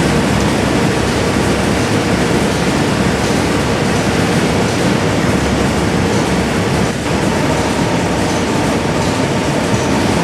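Steady, loud industrial machinery noise, the running plant of a heat-treatment furnace line, with a faint steady hum through it.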